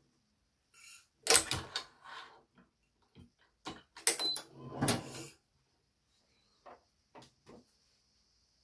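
Badminton racket stringing work on a stringing machine: irregular sharp clicks and knocks. One cluster comes about a second in and another around four to five seconds, then a few light clicks near the end.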